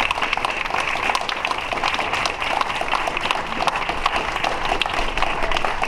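Crowd applauding: a steady patter of many hands clapping.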